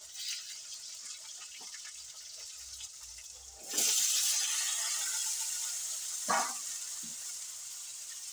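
Diced raw potatoes tipped into hot oil in a kadhai on a gas stove, sizzling loudly as they land about four seconds in, the hiss then easing off slowly. Before that there is a quieter frying hiss, and a couple of seconds after the drop there is a short metal clatter against the pan.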